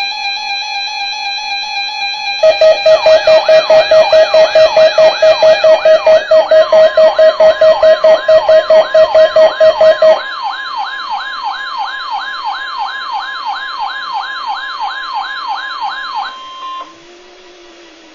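Electronic alert siren tones. A steady chord of tones gives way, about two seconds in, to a loud tone pulsing about four times a second over a fast, repeating warble. The pulsing stops around ten seconds in; the warble carries on until near the end and finishes on a brief steady tone.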